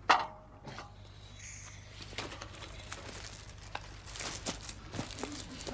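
A single sharp knock at the start, then soft rustling of clothing and small clicks as a trouser belt is pulled off and fastened round a ladder.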